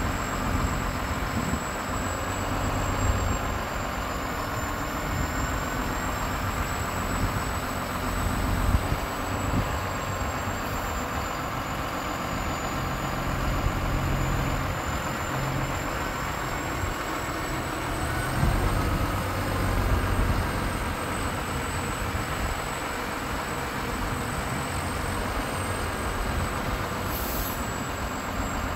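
Iveco Stralis truck's six-cylinder diesel engine running while it drives the hydraulics of its truck-mounted loader crane as the boom is moved. The engine note shifts slightly in pitch and loudness, with a thin high whine that wavers in pitch.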